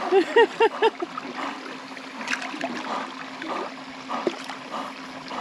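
A few short whining cries from a dog in the first second, then water lapping and dripping around a kayak with soft paddle splashes.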